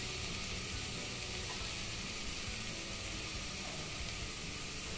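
Potatoes in onion-tomato masala sizzling steadily in a steel pot on the stove.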